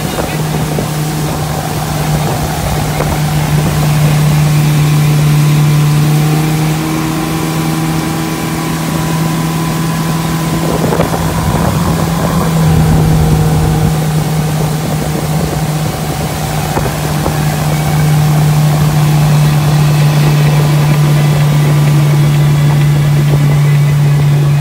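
Motorboat engine running steadily at towing speed, a constant low drone over the rush of wind and water.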